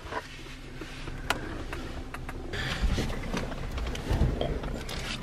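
Low-level rustling and handling noise with scattered light clicks and a couple of dull low thumps, as of someone moving about and handling loose parts inside a stripped car interior.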